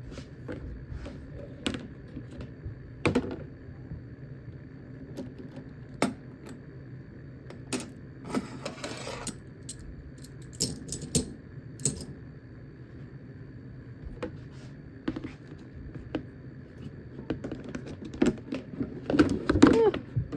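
Metal parts of a pneumatic filling machine clinking and knocking as it is taken apart by hand: scattered clicks and clanks, a short rush of noise a little before halfway, and a cluster of louder knocks near the end.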